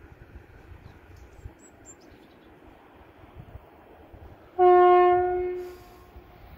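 Horn of a Grand Central Class 180 diesel multiple unit sounded as a single blast on one note, starting suddenly a little past the middle, lasting just over a second and fading away. Faint wind rumble underneath.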